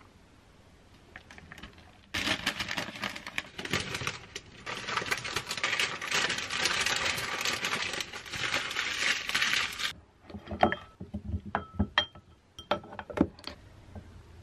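Paper or plastic wrapping crinkling loudly as it is handled for several seconds. Then, a couple of seconds later, a series of light clinks and taps of wooden chopsticks against a glass bowl.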